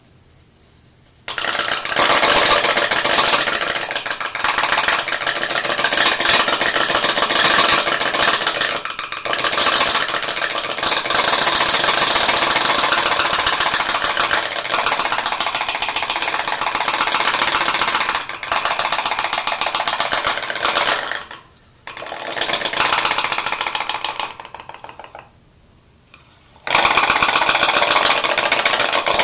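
Homemade pop-pop steam engine running, its boiler heated by a flame: a loud, very rapid stream of popping clicks that starts about a second in, with two pauses of a second or more in the second half before it picks up again.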